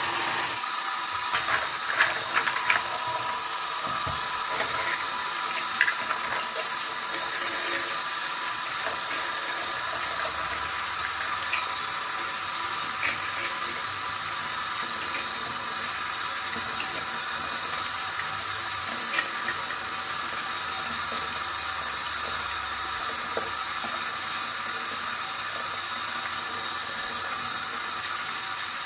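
Steady hiss with a few light clicks and taps, more of them in the first six seconds.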